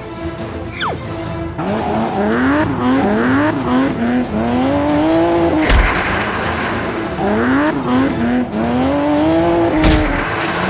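Car engine revving in two runs of quick rising pitches, like shifting up through the gears, each run ending in a sharp thump.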